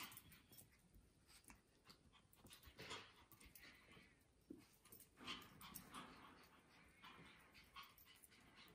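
Two Pomeranians playing chase: faint, irregular panting and short scuffles.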